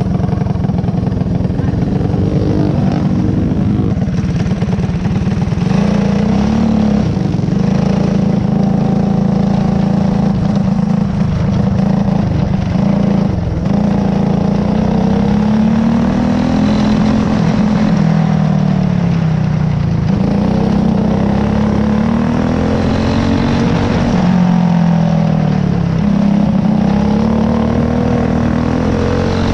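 Racing go-kart engine heard from on board the kart, running hard, its pitch climbing and then dropping back every few seconds as the driver accelerates down the straights and eases off into the turns of a dirt oval.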